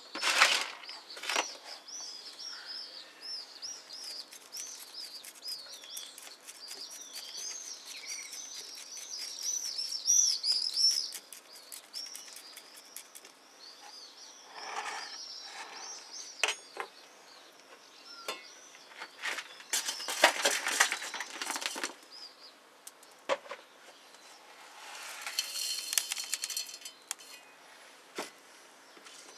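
Small songbirds singing, a chatter of many short warbled notes for the first dozen seconds or so. Over it and after it come bursts of scraping and rattling from hands working granular substrate into a plastic mesh pot, the loudest about two-thirds of the way through and again near the end.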